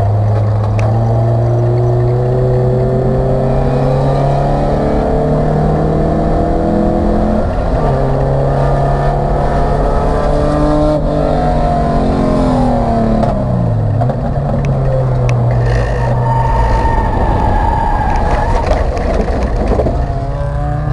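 In-car sound of an Acura Integra race car's four-cylinder engine pulling hard, revs climbing with a sharp drop at an upshift about a third of the way in, then falling as the driver brakes and downshifts. Near the end the car runs off the track onto grass, and a rough, noisy rumble overlays the engine.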